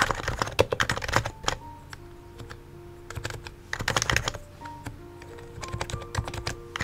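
Typing on a Topre electrostatic-capacitive keyboard: a dense run of keystrokes at the start, another short run about four seconds in, and scattered keystrokes near the end. Background music with soft held notes plays underneath.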